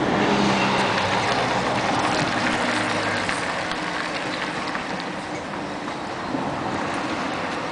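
Cars driving past close by: tyre noise and engines on the road, loudest in the first second or two, then slowly fading.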